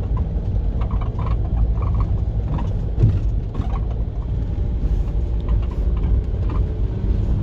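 Short, repeated creaking squeaks from a van's body, which the owner takes to be the doors, over the steady low rumble of the van's engine and road noise inside the cabin.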